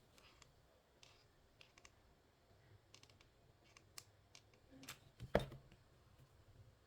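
Faint scattered clicks and light ticks of hands bending and twisting chenille-stem (pipe-cleaner) petals onto a wire stem, with one louder knock about five seconds in.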